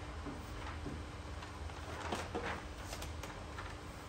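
Classroom room tone: a steady low hum with a faint steady tone above it, and a couple of faint brief sounds a little past halfway.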